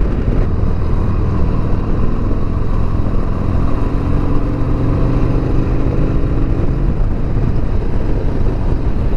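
2020 Harley-Davidson Sport Glide's Milwaukee-Eight V-twin running while riding, with road and wind noise. The engine note drops a little through the middle as the bike slows.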